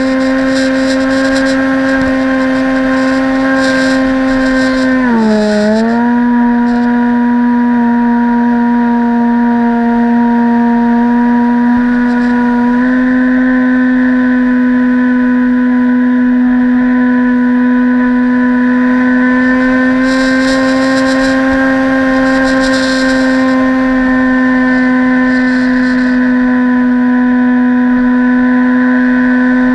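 Electric motor and propeller of a radio-controlled model aircraft, heard close up from an onboard camera: a loud, steady humming whine. About five seconds in the pitch briefly drops and comes back as the throttle is eased off and reopened, then it holds nearly constant.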